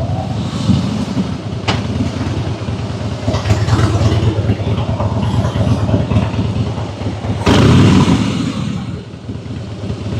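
Harley-Davidson Fat Boy's V-twin engine pulling the bike along on the road. It surges louder about three-quarters of the way through, then eases off near the end.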